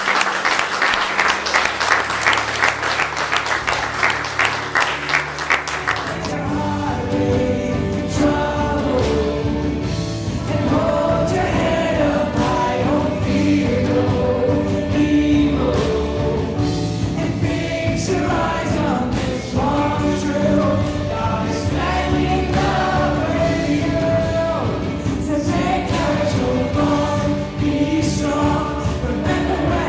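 Congregation applauding over a low held chord for about six seconds. Then a worship song starts, with the whole congregation singing together over a band with a steady beat.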